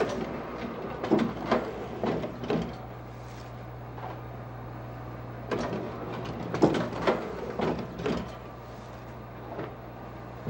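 Hand silk-screen press at work: the hinged wooden screen frame knocking and scraping against the print table as paper is laid in and the frame is lowered and raised. The knocks and scrapes come in two irregular bursts, in the first few seconds and again from about halfway, over a steady low hum.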